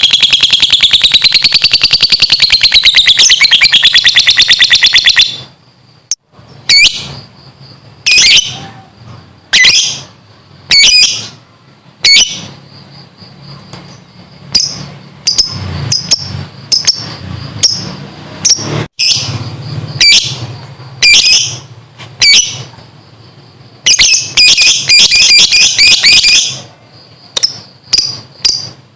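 Lovebird ngekek: a loud, very rapid high-pitched chattering trill that wavers in pitch for about five seconds and then breaks off. Sharp single chirps follow, once or twice a second, and a second, shorter trill comes near the end.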